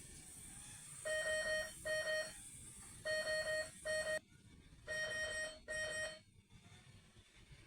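An electronic alarm beeping in pairs: three double beeps of one steady pitch, the pairs starting about two seconds apart.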